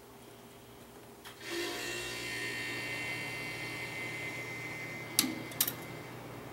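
Metal parts of a coilover being worked by hand as thin spring packers are fitted: a steady, ringing metallic rub starting about a second and a half in and lasting about four seconds, then two sharp clicks near the end.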